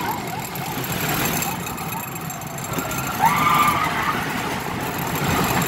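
Roller coaster train running along its track with a steady rushing rumble, and a rider's brief high cry about three seconds in.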